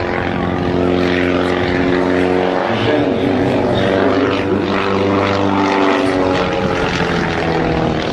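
Propeller airplane engine droning loudly and steadily, its pitch shifting about three seconds in and again near six seconds as the aircraft changes power or moves past.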